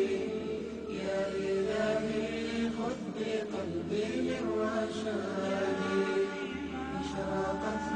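Vocal chanting as background music: a voice or voices singing long held notes, without clear spoken words.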